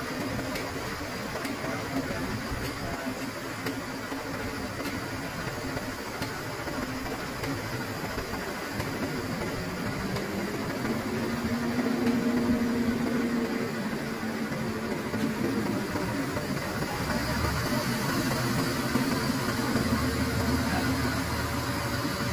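Engines of a farm tractor and a self-loader truck running steadily while the truck's tilted bed, with the tractor on it, is brought down level. The engine note grows a little louder around the middle and stays fuller toward the end.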